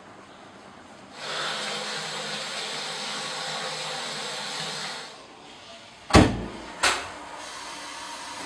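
A steady rushing hiss for about four seconds, then two loud knocks on a door, under a second apart.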